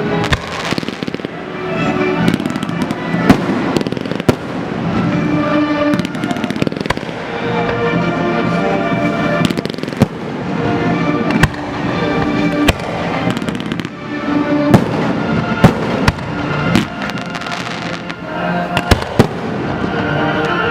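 Fireworks going off in an irregular run of sharp bangs and crackle, with music playing underneath.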